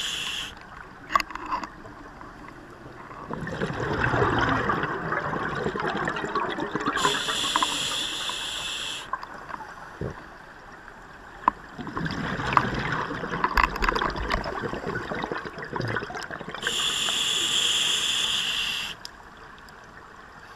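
Scuba diver breathing through a regulator: each inhalation is a high hiss from the demand valve lasting about two seconds, heard twice, and each exhalation is a long gush of bubbles rumbling out past the camera. A few sharp clicks stand out.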